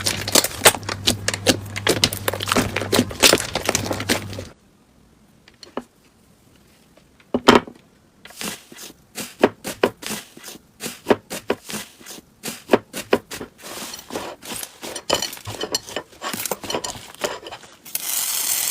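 Slime being squished and poked, giving rapid crackling and popping clicks. About four and a half seconds in it cuts to a quieter clip of sparser pops with one loud snap, and a steady hiss starts near the end.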